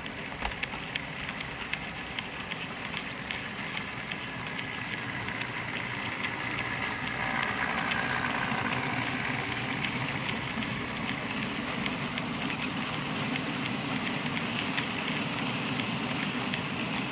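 Model railway mineral wagons rolling over pointwork and a double-slip junction. Their metal wheels make a dense run of fine clicks and clatter over the rail joints and frogs, growing louder about halfway through as the wagons pass close.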